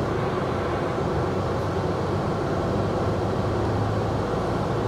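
Lorry engine running steadily, heard inside the tractor unit's cab as an even low drone with a hiss over it.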